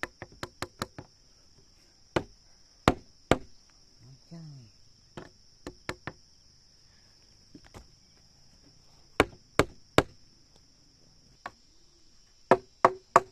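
Sharp blows of a hand tool on wood, coming in irregular groups of two to five quick strikes, over a steady high buzz of crickets.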